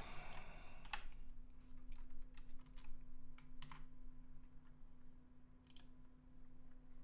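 Light, irregular clicks of a computer mouse and keyboard, about a dozen scattered taps, over a faint steady low hum.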